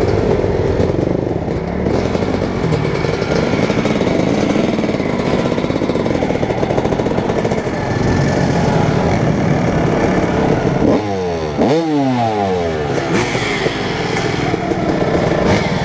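Several dirt bike engines running as the group rides slowly across a gravel lot. About eleven seconds in, one engine's pitch drops sharply and then climbs again.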